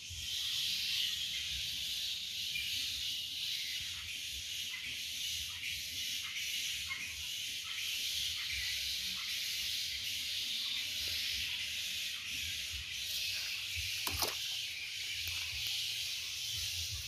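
Steady high-pitched hiss, with a few faint knocks and one sharper click about fourteen seconds in.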